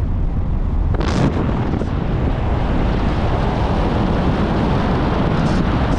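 Loud, steady rushing of wind and road noise in a moving car, buffeting the microphone. It swells sharply about a second in.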